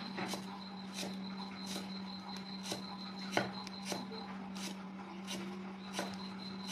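A cleaver chopping on a thick wooden chopping block in slow, even strokes, about three chops every two seconds, over a steady low hum.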